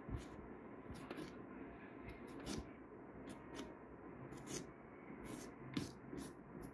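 Pumpkin rind being carved by hand with a small tool: faint, irregular scratches and clicks as it cuts and scrapes.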